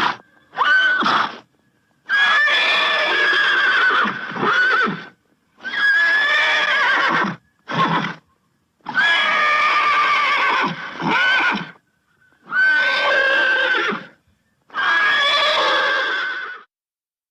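A domestic animal calling over and over: about eight long, loud, wavering calls of one to three seconds each, with short pauses between them.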